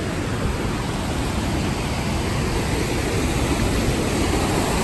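Steady rushing noise of a waterfall close by, growing slightly louder toward the end.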